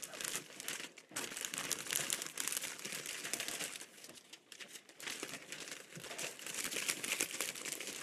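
Clear plastic bag crinkling loudly as a wreath is worked into it by hand, in uneven handling bursts with a quieter lull about four seconds in.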